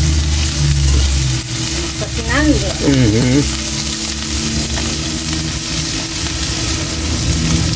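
Food sizzling steadily in a pan over a wood fire, a continuous hiss with a low rumble beneath.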